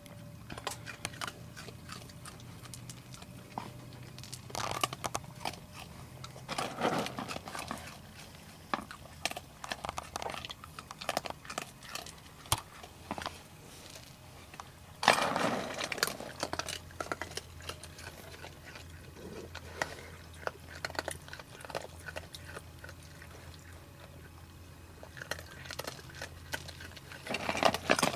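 Raccoons eating, a scatter of small crunching and chewing clicks with a few louder rustling bursts.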